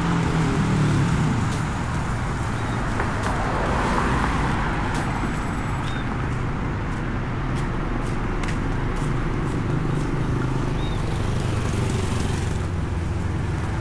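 Street traffic: a steady road noise with vehicle engines humming close by, loudest in the first couple of seconds and again a little past the middle.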